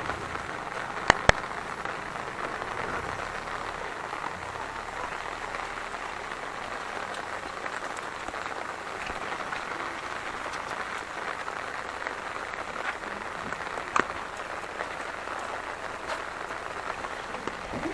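Heavy monsoon rain falling steadily. Two sharp knocks come about a second in, and one more comes later.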